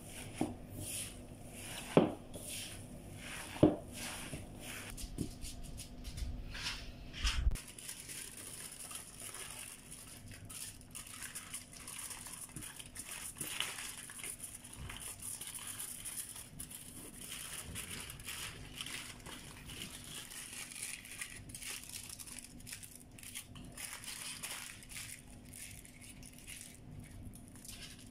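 Hands squishing and mixing a ground-meat mixture in a bowl, with two sharp knocks about two and three and a half seconds in; then aluminium foil crinkling and rustling as the mixture is wrapped and rolled up in it.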